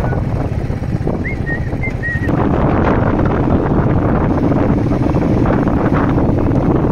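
Royal Enfield motorcycle engine running while riding, with wind buffeting the microphone, which grows louder about two seconds in.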